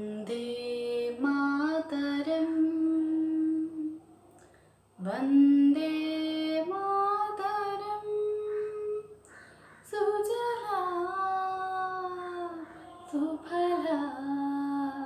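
A young woman singing solo and unaccompanied, in three long phrases of held, gliding notes with short breaths between them.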